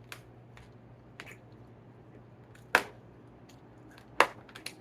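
Wet mouth smacks and clicks of someone chewing steak, scattered, with two louder smacks about halfway and near the end.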